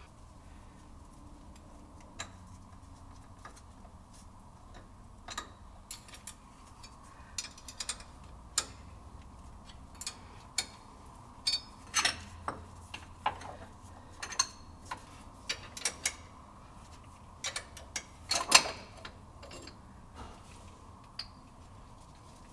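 Irregular metallic clicks and clinks of hand tools and a threaded-rod puller being worked on a CNC spindle's Hirth coupling. The clinks are sparse at first and come more often after about five seconds, with the loudest clatter about three-quarters of the way through.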